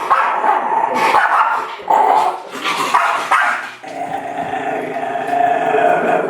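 Miniature schnauzer barking and growling at its own reflection in a mirror, with a long, steady growl through the last two seconds.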